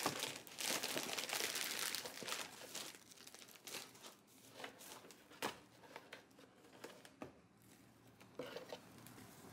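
Clear plastic packaging bag crinkling as clothes are pulled out of it in a cardboard box, loudest in the first three seconds, then softer scattered rustles and crackles of the bag and cotton fabric.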